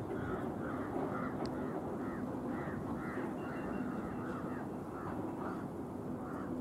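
Crows cawing repeatedly, many short rising-and-falling calls in quick succession, over a steady low rumble.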